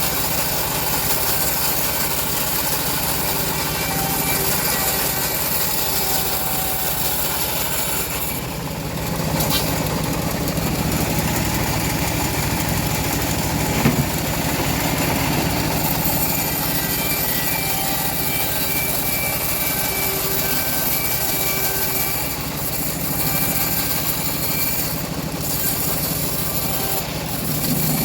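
Engine-driven homemade bandsaw sawmill running steadily while sawing a teak log, with brief dips in its level a couple of times and one sharp knock about halfway through.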